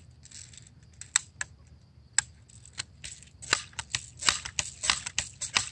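A multi-pump BB gun being readied to fire. A few scattered clicks come first, then from about three seconds in a quick run of sharp clicks and rattles, several a second.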